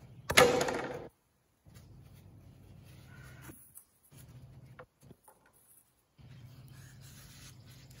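A loud knock with a short rattle and ringing about half a second in, then faint handling noises as tools and foam pieces are moved about, over a low steady hum.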